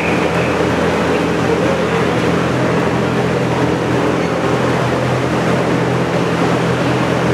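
Steady background din: an even rush of noise over a low hum, unchanging, with no distinct sounds standing out.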